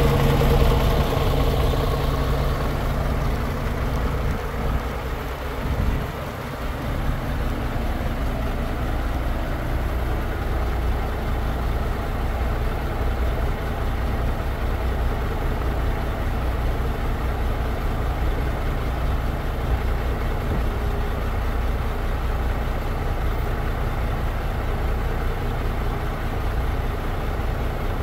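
MAN F2000 35.400 truck's diesel engine running steadily at idle.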